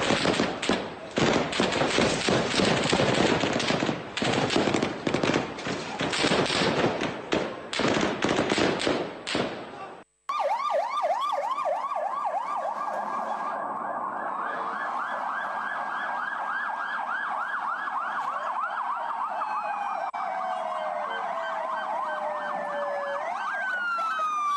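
Loud street commotion of a crowd with many sharp cracks and bangs. About ten seconds in, the sound cuts and security-vehicle sirens take over: a fast yelp of about three rising-and-falling sweeps a second, with a second siren tone sliding slowly down near the end.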